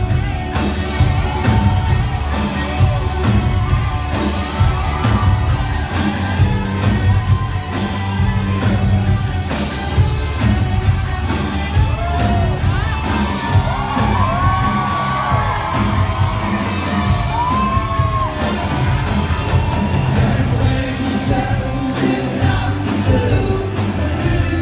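Live rock band playing in concert: loud, steady drums and bass under a lead vocal with sliding, held notes, with whoops and yells over the music.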